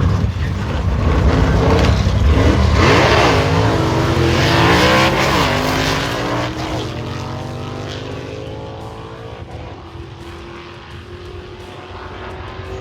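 A drag race car accelerating hard down the strip. Its engine note climbs and drops back several times as it shifts gears, then keeps rising in pitch while fading as the car pulls away.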